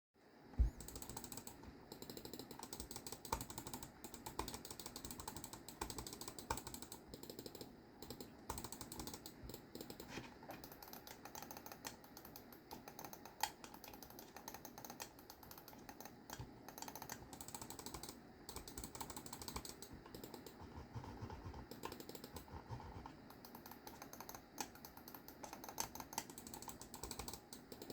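Keychron M3 mini wireless mouse buttons clicking over and over in quick runs of light clicks, with a louder knock about half a second in.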